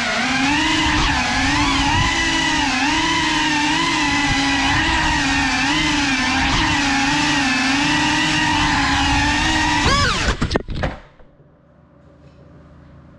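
Small indoor FPV quadcopter's motors and propellers whining steadily, the pitch wavering up and down with the throttle. About ten seconds in, the pitch swings rapidly a few times and then the motors cut out.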